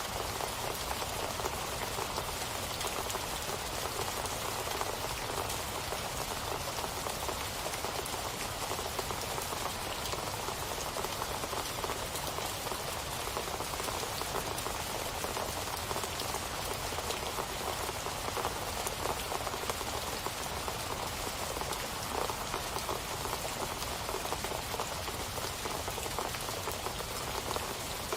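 Steady rain falling, a dense, even patter of drops hitting a surface.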